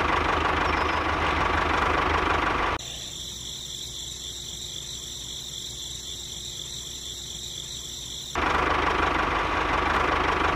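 Engine sound of a miniature walking tractor running with a steady rhythmic chug. About three seconds in it drops to a quieter steady whir with a high whine, and the engine sound returns near the end.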